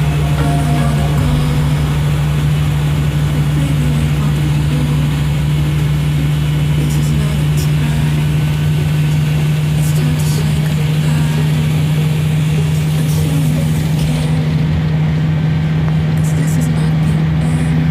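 A motor running steadily, a constant low-pitched drone with no change in speed.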